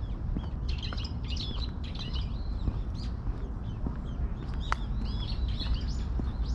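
Small birds chirping, many short overlapping calls, over a steady low rumble.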